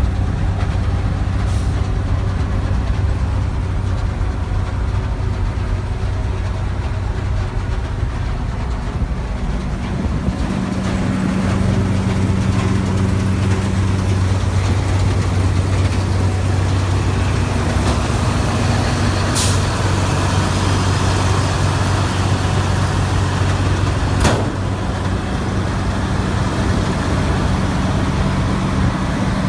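New Holland TX68 combine harvester's six-cylinder diesel engine running steadily under load, a low drone whose pitch shifts slightly a third of the way through. A brief high hiss comes about two-thirds through, and a sharp knock a few seconds after it.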